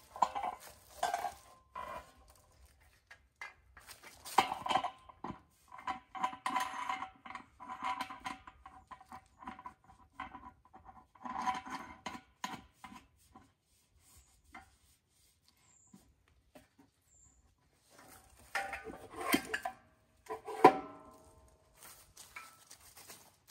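A shallow round steel camp pan and its metal tripod stand being handled and fitted together: bursts of clanking and scraping metal with the pan ringing, a lull in the middle, then a final few sharp clanks.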